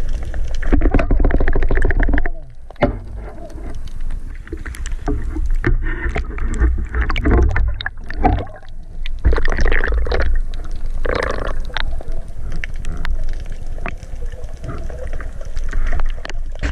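Underwater sound through an action camera's housing: a steady low water rumble with many sharp knocks, clicks and scrapes as the diver handles the speared dentex and his speargun.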